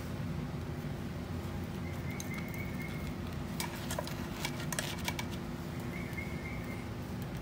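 Light crackling and a few soft clicks of bread bun halves being pressed into a metal muffin tin, mostly around the middle, over a steady low hum.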